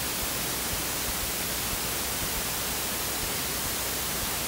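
Idle output hiss from two audio amplifier boards with no signal, boosted 18 dB: a steady hiss. Most of it comes from the Class D amplifier; the linear Class AB amplifier, built on a TDA7375AV chip, is much quieter.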